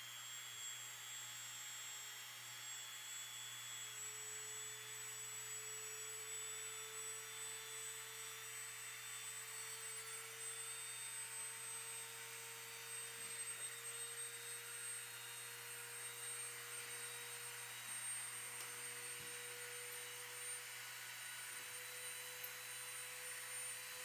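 Bandsaw-mill blade sharpener (Norwood Standard Sharpener) running with a steady, faint whine whose pitch creeps slightly higher, with a low hum beneath, while it grinds the backs and gullets of the blade's teeth.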